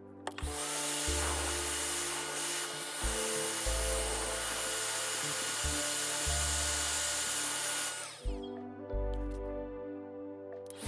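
Heat gun blowing hot air onto copper and brass tubing being soldered: a steady rushing hiss with a faint whine. It comes on just after the start and cuts off about eight seconds in, with a short falling sweep as it stops. Background music with a bass beat plays throughout.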